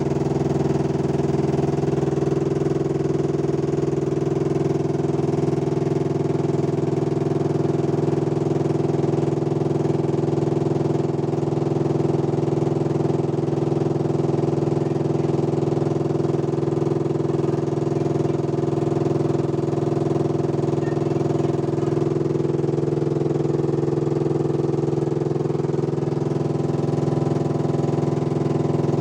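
Engine idling steadily with an even, unbroken running note; a slight shift in its tone comes about two-thirds of the way through.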